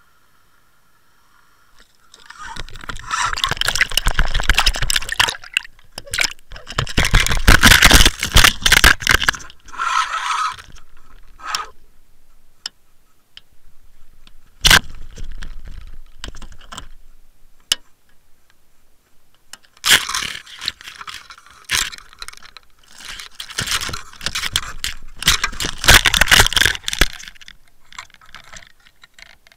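Underwater camera on a fishing line being jerked and knocked about by a hooked pike: bursts of rattling, scraping water noise with sharp knocks. The noise starts about two seconds in, and a second long burst comes after a quieter stretch of scattered knocks.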